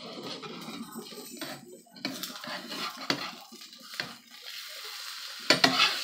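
Stainless-steel spatula scraping and knocking against a nonstick frying pan as an omelette is lifted and folded over, with a quick cluster of louder knocks near the end.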